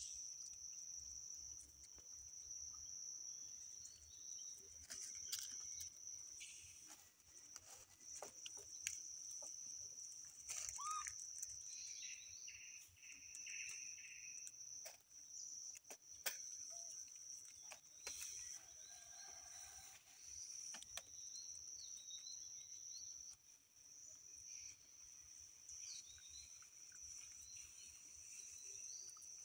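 Faint outdoor ambience: a steady high-pitched drone throughout, with scattered clicks and a few short animal calls, one of them rising, about eleven seconds in.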